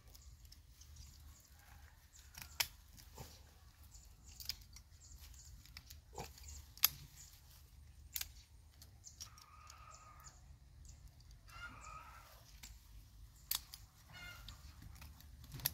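Scattered sharp snips of bonsai pruning shears, about eight in all, with a chicken clucking in the background a few times in the second half.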